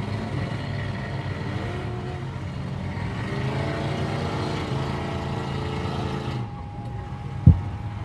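Several demolition derby cars' engines running together and revving, rising and falling in pitch, with a single dull thump near the end.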